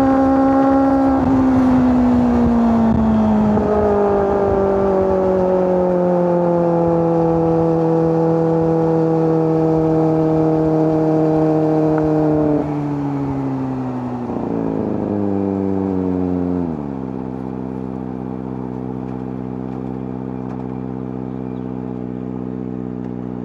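Kawasaki ZX-25R's 250 cc inline-four engine slowing down, its pitch falling steadily as the bike decelerates. There are two short rises and falls in pitch a little over halfway through, then the engine settles to a steady idle for the last several seconds.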